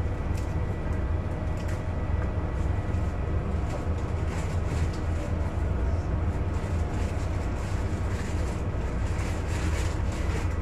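A steady low rumbling hum throughout, with faint scattered clicks and rustles of hands handling garlic and kitchen items.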